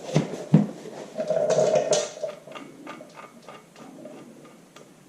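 Greasy hands being wiped clean in a workshop: two sharp knocks near the start, about a second of rubbing, then light scattered ticks.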